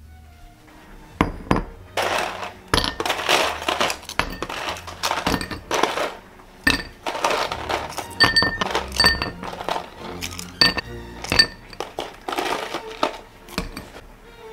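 Ice cubes dropped with tongs into two glass goblets: a long run of sharp clinks against the glass, with ice rattling in between, starting about a second in and stopping near the end.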